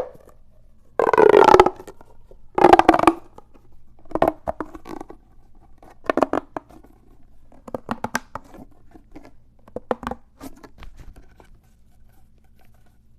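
Pop tube fidget toys, corrugated plastic tubes, being stretched and squashed. They make a ratchety clicking with short pitched groans, in about half a dozen bursts; the two loudest come in the first three seconds and the later ones are fainter.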